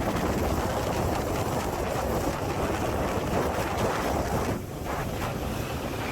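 Wind buffeting the microphone on a moving tour boat, mixed with the rush of water from the boat under way. The noise dips briefly a little over four and a half seconds in.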